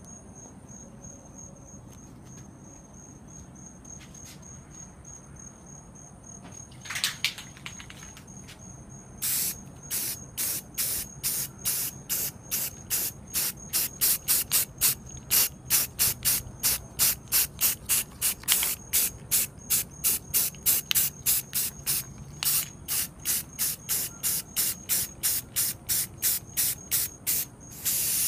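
Aerosol spray-paint can sprayed in short quick bursts, about two a second, starting a few seconds in. A steady high-pitched whine runs underneath.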